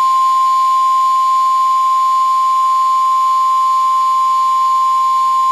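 Weather-radio warning alarm tone: a loud, steady single beep at about 1,050 Hz, held unbroken. It is the attention signal announcing a National Weather Service severe thunderstorm warning.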